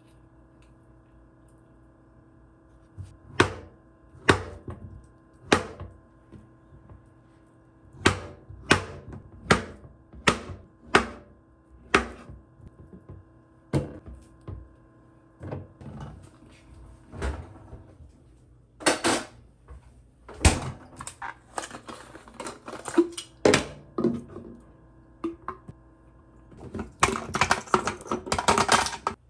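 Kitchen knife cutting an avocado on a wooden cutting board, a dozen or so sharp knocks about a second apart, over a faint steady hum. Later comes looser clicking and clatter, and near the end a dense rattle of ice cubes tumbling from a plastic ice tray into a plastic blender cup.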